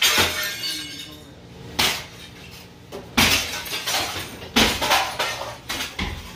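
Shards of a broken plate-glass shop window being knocked out with a long-handled tool: about five sharp hits a second or so apart, each with glass shattering.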